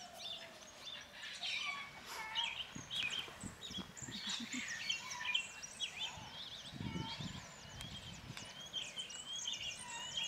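Many small birds chirping all through, a dense chatter of short, high calls and quick rising whistles.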